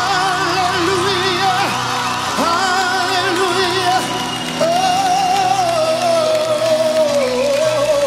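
Live gospel worship song: voices singing with vibrato over keyboard accompaniment. Just past halfway one long note is held, and it slides down near the end.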